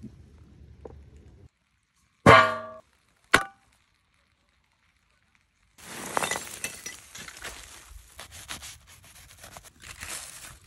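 A single loud ringing metallic clang about two seconds in, then a short click. After a pause, aluminium foil crinkles and rustles with dense small crackles as a foil-wrapped lamb leg is lifted from the tandoor pit and unwrapped.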